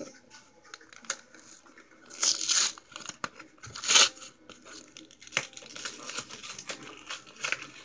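Paper and cardboard packaging of a Pokémon card pack being torn and crinkled by hand. It rips loudly about two seconds in and again about four seconds in, with a click past the middle and softer crinkling after.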